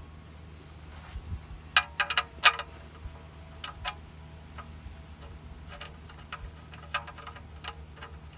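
Irregular light metallic clinks and taps as metal parts and tools are handled during an oil change, a few ringing briefly, the loudest cluster about two seconds in, over a steady low hum.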